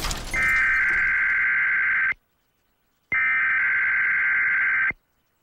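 Electronic alarm sounding in long, steady high beeps, each about two seconds, with a silent gap of about a second between them. A crash noise is tailing off at the very start.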